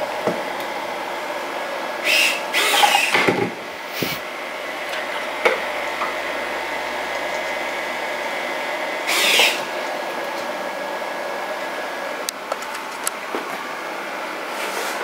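Servo motors of a 3D-printed InMoov bionic hand whirring in two short bursts, about two seconds in and again about nine seconds in, over a steady electrical hum, with a few light clicks.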